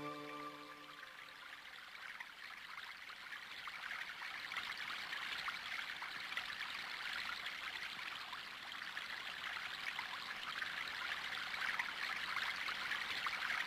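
Steady rushing and trickling of running water, like a small stream. The last notes of soft music die away in the first second.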